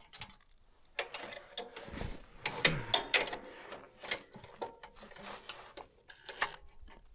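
Irregular clicks and metallic clinks of a socket ratchet wrench being worked in short spurts as a bolt is threaded in and tightened.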